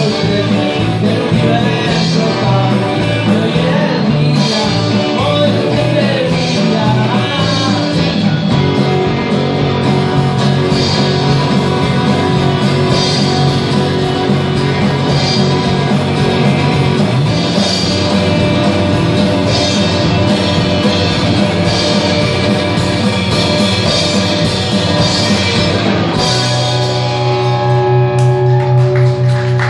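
Live rock band playing, with electric and acoustic guitars and drums under a male lead vocal. About 26 seconds in, the band settles into long held notes, a closing chord left ringing.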